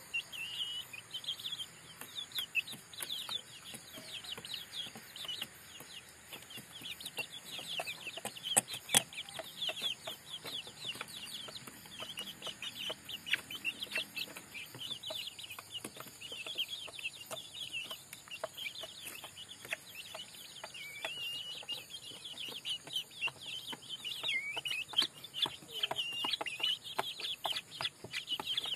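A flock of young native chickens peeping continuously: many short, high, falling peeps overlapping one another. Occasional sharp taps are mixed in, the loudest about nine seconds in.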